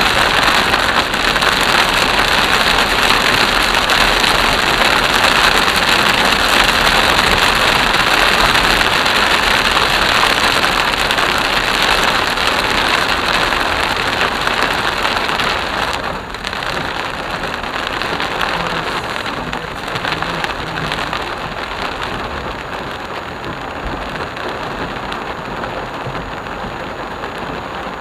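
Heavy monsoon rain pelting a car's windshield and roof, heard from inside the moving car along with the hiss of tyres on the wet road: a dense, steady rush that eases somewhat a little past halfway.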